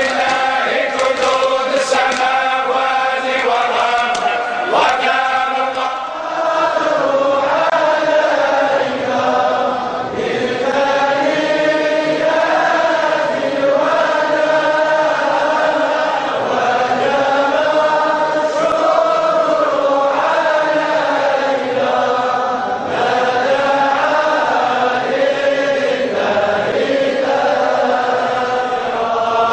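A large group of men chanting a devotional chant in unison, with long held notes that waver up and down. A few sharp knocks sound in the first seconds, and the chant changes to a different group about six seconds in.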